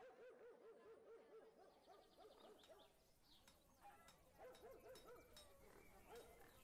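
Faint animal calls: quick series of short, rising-and-falling cries, with a few light clicks.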